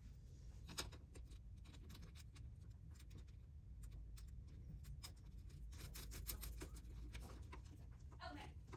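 Near silence over a low steady hum, with faint scattered clicks and rubbing from small parts being handled.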